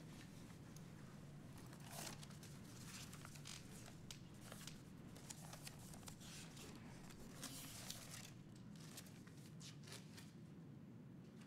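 Faint paper rustling as loose sheets are handled and leafed through, a run of short crisp rustles over a low steady room hum.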